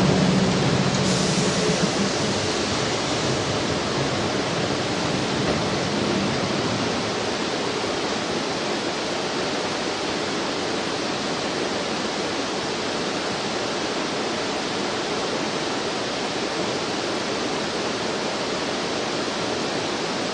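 Steady rushing of flowing river water. The last faint hum of a departing Eizan Railway 800-series train fades out under it in the first few seconds.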